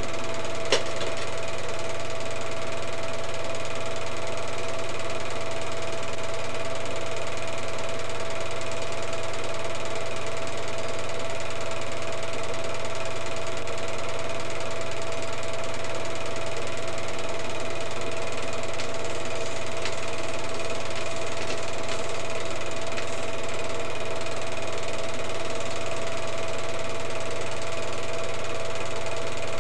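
Film projector running steadily: a constant mechanical whir with a fixed tone through it, and a single sharp click about a second in.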